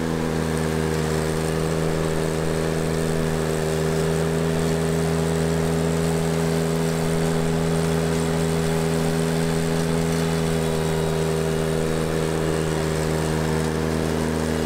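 Ventrac compact tractor with a front mower deck, its engine running steadily at constant speed with an even, unchanging drone.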